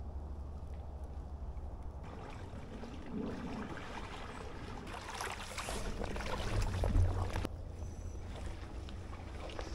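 Muddy floodwater sloshing and swishing around a person's waders while wading, building to its loudest about two thirds of the way in and then dropping off suddenly, over a low rumble on the microphone.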